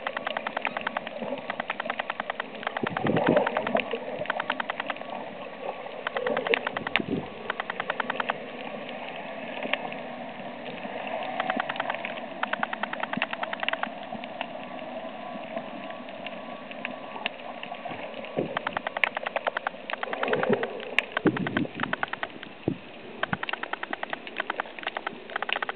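Underwater on a coral reef: a constant crackle of fine clicks, typical of snapping shrimp, with a few muffled whooshes of water moving past the camera.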